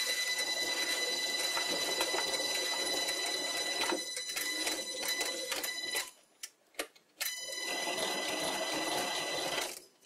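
Vintage sliding-spindle bench lathe running slowly on a frequency-drive motor, with a steady high whine and a file-made scraper cutting a thread into the spinning wood. The motor has little power left at about 15 Hz. The run cuts out twice, about six seconds in and near the end, with a couple of clicks in each pause.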